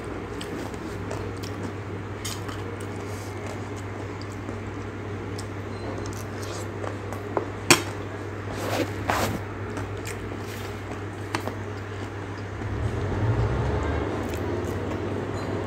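Metal fork clinking and scraping on a ceramic plate while eating, with a single sharp clink about halfway through. Near the end, biting and chewing a piece of food held in the hand.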